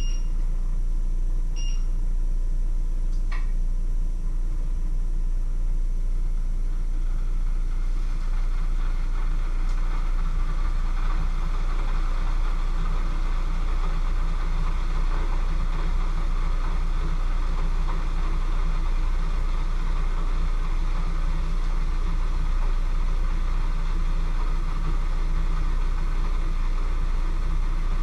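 Steady low rumble, with a few light clinks near the start and a hiss that builds from about eight seconds in.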